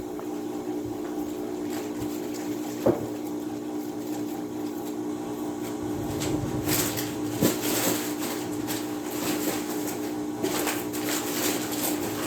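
Electric mixer running with a steady motor hum, with a couple of sharp knocks and bouts of rustling and clattering from cleanup on the table.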